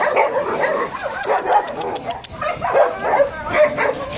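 Kennelled dogs, Belgian Malinois among them, barking and yipping continuously, many barks overlapping one another.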